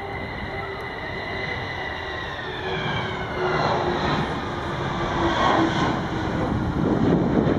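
Tupolev Tu-160 bomber's four NK-32 turbofan engines as the aircraft flies low past, with a whine that falls in pitch as it goes by and a deep rumble that grows louder near the end.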